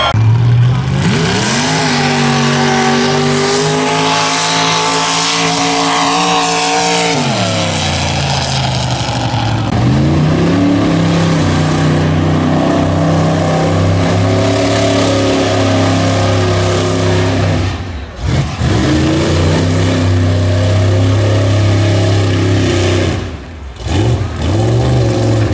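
Mud bog vehicles' engines running at full throttle through the pit. One revs up, holds high for about five seconds and winds down. Then another engine runs hard and steady, cut off suddenly twice near the end.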